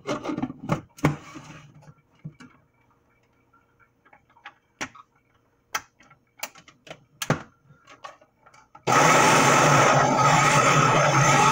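Plastic clicks and knocks as a food processor's lid and feed-tube pusher are fitted. About nine seconds in, the food processor's motor starts suddenly and runs steadily, chopping the ingredients.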